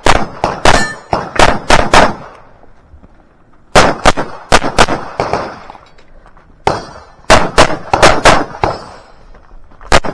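Rapid pistol fire in three quick strings of several shots each, with pauses of a second or two between the strings.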